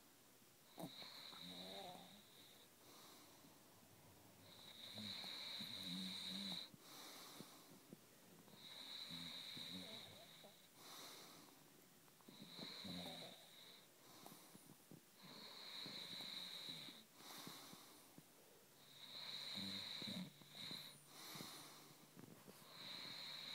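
Faint, slow snoring: about seven breaths, one every three to four seconds, each with a high whistling note over a low rattle.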